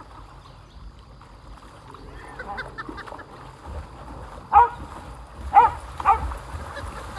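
Short, loud animal calls: a few faint ones, then three sharp calls in quick succession, over a low rumble.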